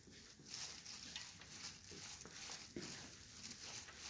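Faint rustling with scattered light taps and clicks from the handheld recording device being moved, setting in about half a second in.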